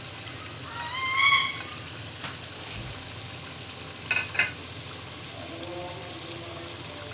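Kabab gravy sizzling steadily in a pot on the stove, its ghee frying on top. A short rising pitched call cuts across about a second in, the loudest thing heard, with two brief ones around four seconds in.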